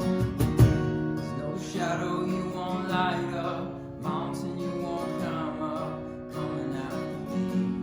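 Live worship music: a strummed acoustic guitar with a voice singing a held, wavering melodic line over it, the strums sharpest about the first second.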